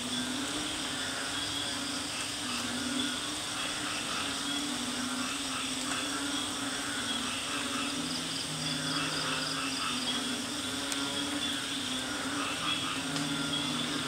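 Night chorus of frogs and insects. Frogs repeat low, drawn-out calls, and a deeper call joins about eight seconds in and again near the end, over steady high insect trilling and pulsing.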